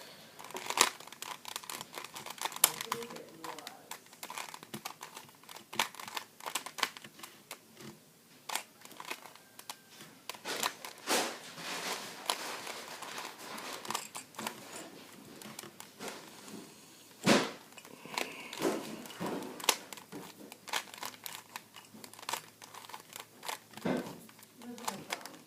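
Plastic Rubik's cube being twisted by hand: its layers click and clack in quick irregular runs, with short pauses between turns.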